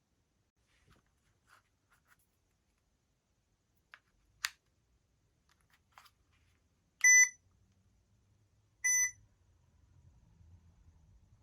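A few faint clicks and one sharper click, then two short electronic beeps about two seconds apart from the OZS infrared thermometer doorbell.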